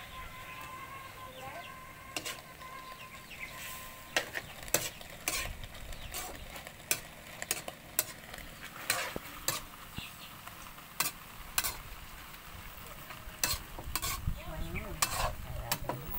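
Metal spatula scraping and clanking against a metal wok as vegetables and shrimp are stir-fried, over a steady sizzle. The clanks come irregularly, about one or two a second, from about four seconds in.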